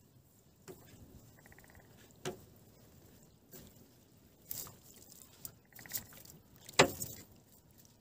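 Wet fishing net being hauled by hand over the side of a wooden boat: a handful of scattered knocks and light dripping as the net and its floats and weights strike the hull, the loudest knock about seven seconds in.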